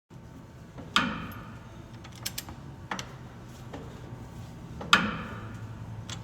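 Diesel fuel injector under test: two sharp pops about four seconds apart, each ringing briefly, with a few lighter clicks between them over a low steady hum. The injector is new out of the box and judged bad.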